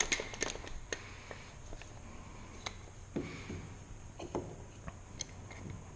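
Scattered light knocks and clicks as a wooden hand-screw clamp and a small block of wood are handled on a workbench.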